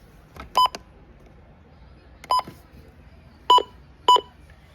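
Short electronic beeps, all at the same high pitch, in an irregular pattern: a quick double beep, then a single, then two more near the end.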